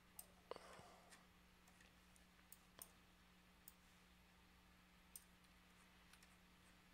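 Faint computer mouse clicks, about eight of them at irregular intervals, the loudest about half a second in, over a steady low hum.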